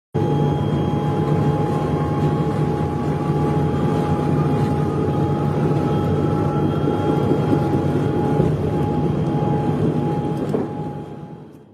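A steady mechanical drone: a low hum and a steady whistle-like tone, with a fainter whine that slowly rises in pitch. It starts abruptly and fades out near the end.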